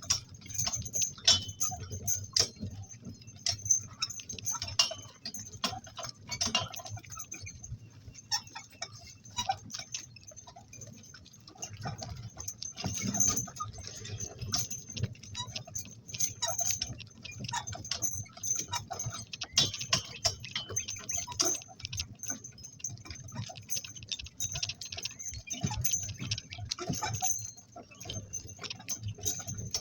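Two-donkey work cart on the move: irregular metallic clinks and clicks from the harness and cart hardware over a steady low rumble.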